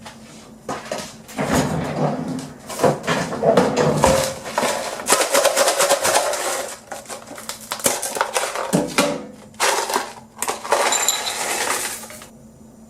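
Things being handled: irregular clattering and rustling, dense and busy, stopping about a second before the end.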